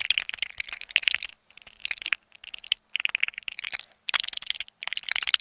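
Giant-insect sound effect: dense, rapid crackling clicks coming in a string of short bursts with brief gaps between them, like mandibles or an insect's clicking chatter.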